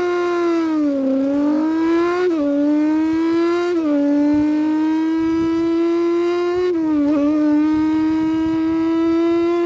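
A person imitating a V10 supercar engine with his mouth in one long unbroken drone, the pitch climbing slowly and then dropping at each mimicked gear shift, four times, like a car pulling through the gears.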